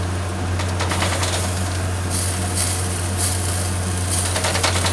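Chicken pieces sizzling on a charcoal grill grate as oil is brushed on, the hiss and crackle growing from about two seconds in as oil drips onto the hot coals. Under it runs a steady low hum.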